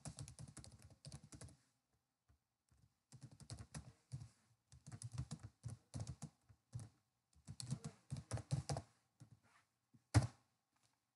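Computer keyboard typing: clusters of quick keystrokes with short pauses between them, then one louder keystroke or click about ten seconds in.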